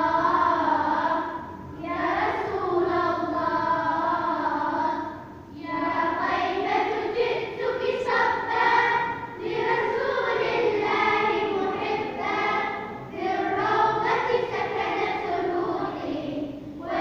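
A group of high voices singing together in long, wavering unaccompanied phrases, with short breath pauses between phrases.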